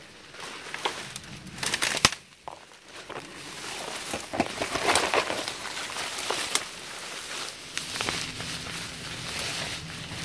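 Footsteps crunching and crackling through dry brush and loose ground, with a sharp crack about two seconds in.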